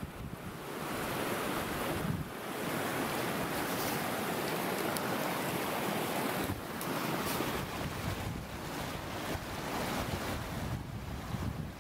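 Continuous rushing of a small snowmelt mountain stream, mixed with wind gusting on the microphone, so the noise swells and dips every few seconds.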